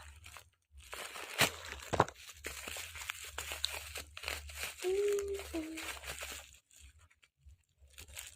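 Parcel packaging being crinkled and torn open by hand, with many sharp crackles and rustles. A short hummed voice sound comes about five seconds in, and the rustling grows quieter near the end.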